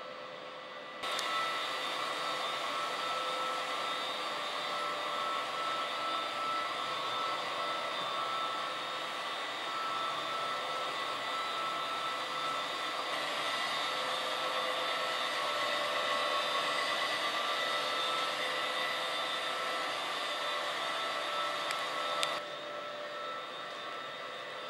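Industrial drum vacuum running steadily, a loud rushing noise with a high whine. It comes in abruptly about a second in and cuts off a couple of seconds before the end, leaving a quieter steady hum.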